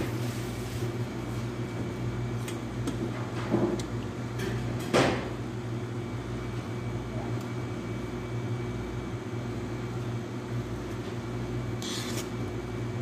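Metal clicks and scrapes of a spring-lever batter scoop working in a stainless-steel bowl of cake batter, a few at a time, the loudest about five seconds in, over a steady low hum.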